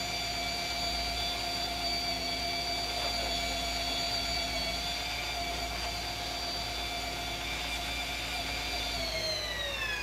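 Sportfishing boat's engines running under way: a steady high whine over the rush of wake and wind. Near the end the whine falls in pitch as the engines slow.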